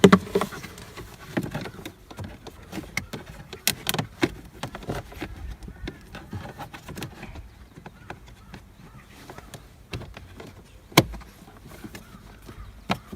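Scattered plastic clicks and knocks from handling and fitting the plastic cabin air filter housing cover behind the glove box, with one sharp snap about 11 seconds in.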